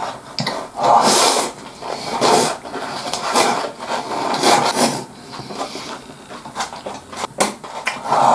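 Wooden chopsticks scraping and clicking against a takeout gyudon bowl held at the mouth, with rice being shovelled in and chewed: a string of rasping scrapes and small clicks.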